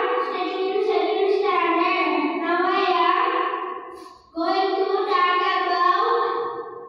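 A young boy singing a song solo into a handheld microphone, with no accompaniment. There are two sung phrases of held notes, with a short breath between them about four seconds in.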